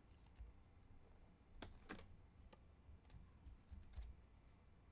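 Faint, scattered clicks of trading cards and a plastic card sleeve being handled.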